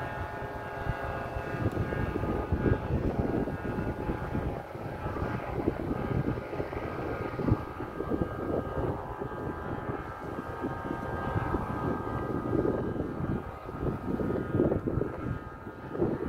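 Strong wind buffeting the microphone in uneven gusts, over a steady droning hum made of several held tones.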